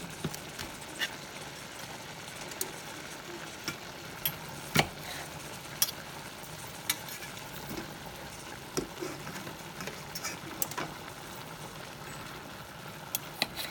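Chicken and vegetables sizzling in a stainless steel skillet over medium heat. A knife, fork and spatula make irregular sharp clicks and scrapes against the pan as the food is cut and stirred.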